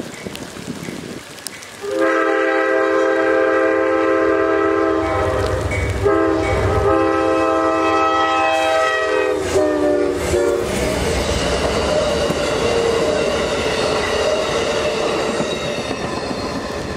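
Amtrak GE Genesis passenger locomotive sounding its horn for a grade crossing. There are two long blasts, and the pitch falls at the end of the second as the locomotive passes. Then comes the steady rumble and wheel clatter of the train rolling by.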